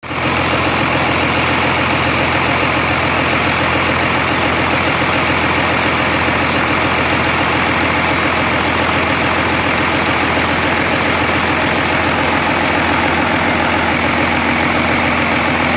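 Hino diesel engine running steadily under load: a continuous low drone with a fast, even firing beat.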